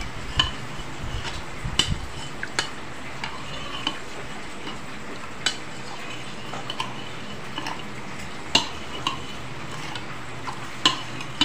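A spoon stirring thin sauce in a bowl, with a sharp clink each time it knocks the bowl's side, about half a dozen times, over a steady hiss.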